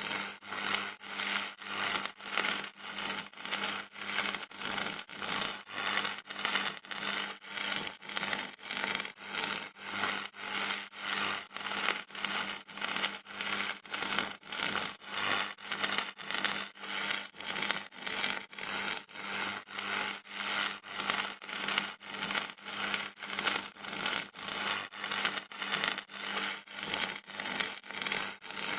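Electricity sound effect: a harsh, rasping buzz that pulses evenly about twice a second over a steady low hum.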